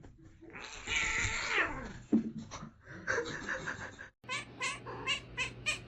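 A domestic cat yowling in a long, drawn-out cry that falls in pitch, followed by broken shorter calls. After an abrupt cut comes a quick run of short, sharp sounds, about three a second.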